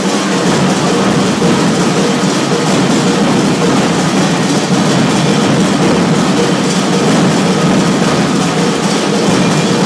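Live capoeira music, mostly percussion, recorded so loud and distorted that it blurs into a dense, steady din.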